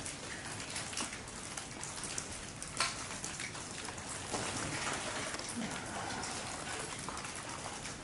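Heavy rain pouring down, a steady hiss scattered with sharp drip ticks, one louder tick about three seconds in.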